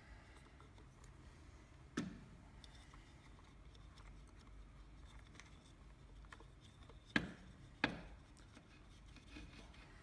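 Handling of the fencing stapler's parts during servicing: quiet fiddling with three sharp knocks, one about two seconds in and two close together near the end.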